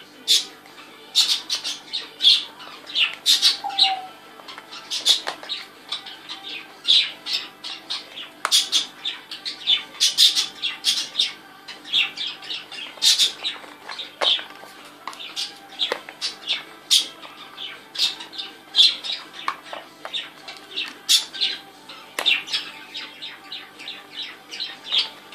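African grey parrot making a quick run of short, sharp squawks and clicks, two or three a second.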